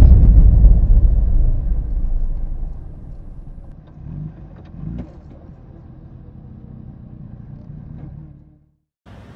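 Kawasaki sportbike's engine and rushing wind heard from the rider's seat, loud at first and then dropping away steadily over several seconds as the bike backs off, fading out near the end.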